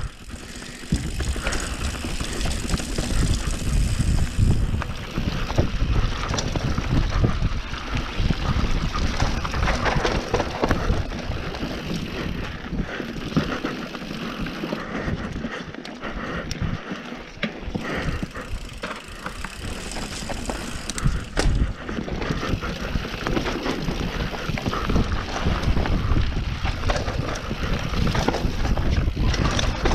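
Mountain bike riding down a dirt trail: a continuous rush of tyre and riding noise, heaviest in the low end, with frequent knocks and rattles as the bike goes over rough ground.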